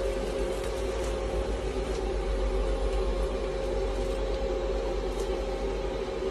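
TIG welding arc from a lift-start pulse welding machine, a steady hum with hiss and a few faint crackles.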